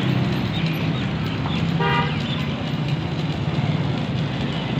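A vehicle horn toots once, briefly, about two seconds in, over a steady low hum and road noise.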